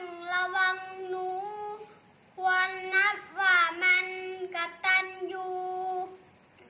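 A child's voice chanting a Thai dok soi verse about a cat to a sung melody, with long held notes in two phrases, a short break about two seconds in, and stopping about six seconds in.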